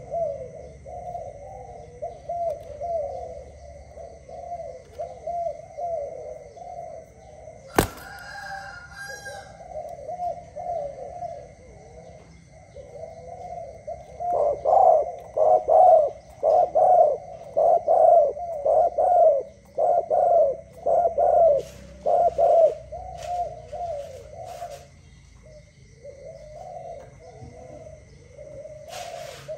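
Spotted dove cooing: a steady run of soft, low warbling coos, broken by a louder series of about ten evenly spaced coos in the middle. A single sharp click about eight seconds in.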